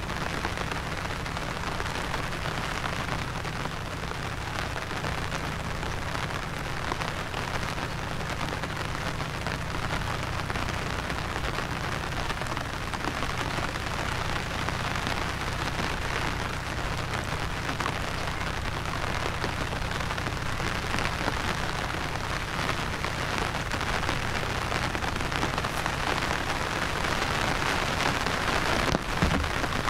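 Steady monsoon rain falling, a continuous even hiss of drops, with one brief thump near the end.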